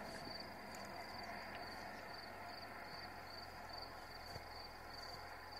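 Cricket chirping steadily in a high, evenly pulsed trill, about three pulses a second, over faint outdoor background noise.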